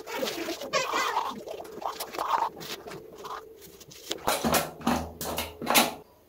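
Manual toothbrush scrubbing teeth through a mouthful of toothpaste foam, in quick scratchy strokes that come thickest in the second half.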